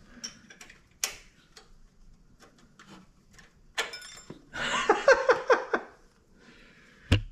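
Small clicks and taps of metal parts being handled while fitting a Corvair choke thermostat and its rod. About five seconds in there is a louder squeaky burst lasting about a second, and a sharp knock comes just before the end.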